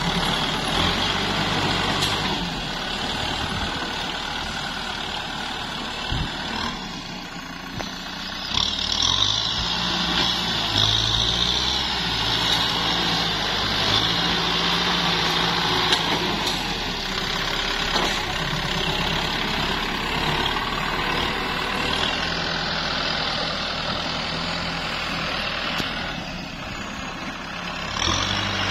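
Kubota M6040SU tractor's diesel engine running under load as its front blade pushes mud, with the engine note rising and falling several times.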